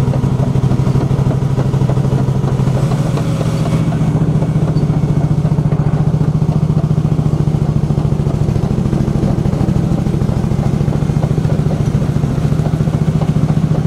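Diesel engine of a T-330 crawler bulldozer (330 horsepower) running steadily under load while the machine battles deep snowdrifts, a deep, fast-pulsing drone.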